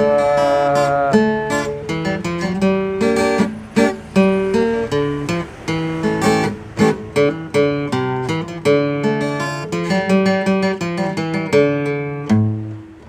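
Cutaway acoustic guitar played solo, mixing picked melody notes with strummed chords, the last notes left to ring and fade near the end.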